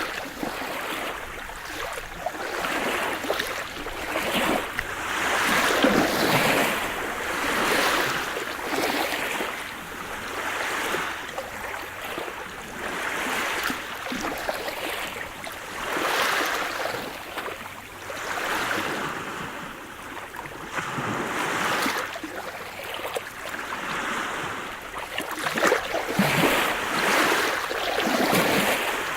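Sea surf: waves breaking and washing up the shore in a steady rushing hiss that swells and falls back every two to three seconds.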